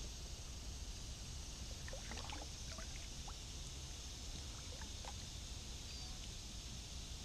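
Kayak paddle working the water: a few small splashes and trickles of water running off the blade, over a steady background hiss.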